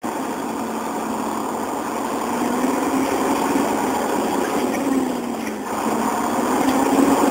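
An engine running steadily, its pitch rising and falling slightly a few times.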